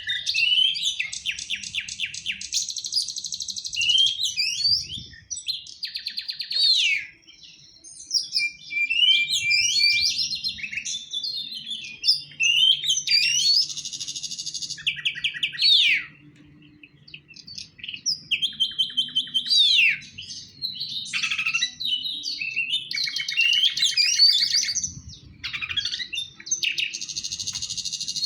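Oriental magpie-robin (kacer) in full, fired-up song: a loud, varied run of rapid rattling trills, quick whistled glides and buzzy phrases with only brief pauses. It is the aggressive 'ngobra' singing used as a provoking rival voice.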